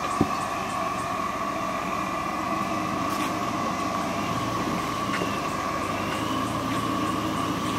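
A 2010 Jeep Wrangler Unlimited Rubicon's 3.8-litre V6 running at low revs as it crawls over rocks, with one sharp knock about a quarter second in. A steady high-pitched drone sits over the engine sound.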